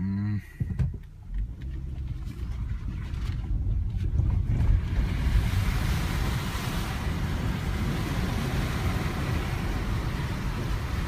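A 2014 Ford Edge SUV driving slowly through a deep muddy puddle, heard from inside the cabin: a low rumble of engine and tyres, joined about five seconds in by a steady hiss of water spraying against the underbody and wheel wells.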